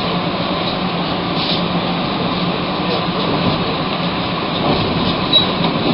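Steady noise inside a Montreal Metro MR-63 rubber-tyred car at a station, with a constant low hum from the car's equipment and a few faint ticks.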